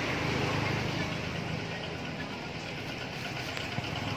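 A motor vehicle engine running steadily at idle, a low even hum under a background haze.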